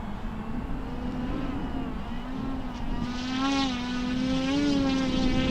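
Electric motor and propeller of a large RC scale model plane (FMS de Havilland Beaver) flying by, a steady droning hum that wavers slightly in pitch and grows louder about three seconds in as it comes closer. Wind noise rumbles on the microphone underneath.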